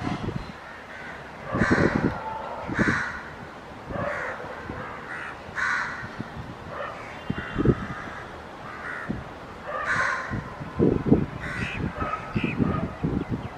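Crows cawing repeatedly, a call every second or two, with irregular low thumps beneath.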